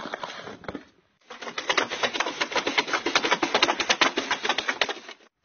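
Snow shovel blade scraping and rattling over snowy pavement while a dog bites and tugs at it: a quick, busy run of clicks and scrapes, several a second, starting after a brief gap about a second in.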